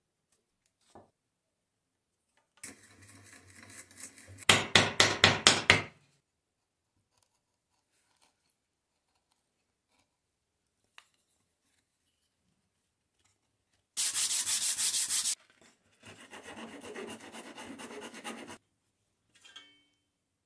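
Hand tools cutting and scraping wood in separate short bouts. First comes a soft scraping, then about eight quick loud rasping strokes, about five a second. After a pause there is a steady bright hiss of about a second and a half, followed by a few seconds of softer scraping.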